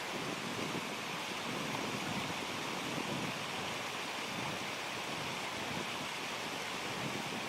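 Mountain stream's water running, a steady even rush.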